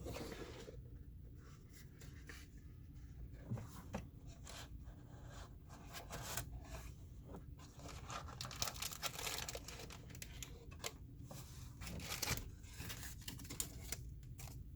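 Plastic packaging being torn and crinkled by hand, an irregular run of small crackles and rips that grows busier about halfway through.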